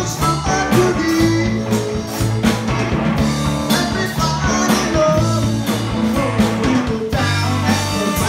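Live rock band playing an instrumental passage: electric guitar lines over a drum kit's steady beat.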